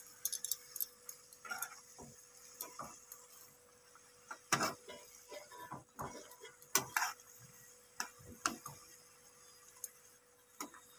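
Spatula scraping and tapping against a frying pan as pieces of fried fish are slid into mustard curry and turned: scattered light clicks and scrapes, a second or two apart.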